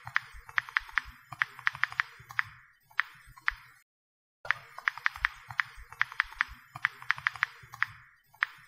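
An electronic sound effect of rapid pings and clicks over a soft hiss, in two near-identical runs of about four seconds with a brief silent gap between.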